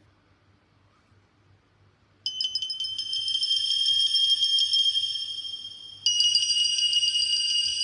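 A Nokia N8-00 ringtone playing: a bright chime-like tone that starts about two seconds in with a quick shimmering flutter, rings on and fades, then sounds again about six seconds in.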